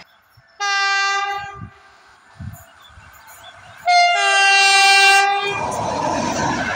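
EP07 electric locomotive's horn sounding two blasts, the first about a second long and the second louder and about a second and a half long. Near the end the rumble of the locomotive and its coaches passing close rises.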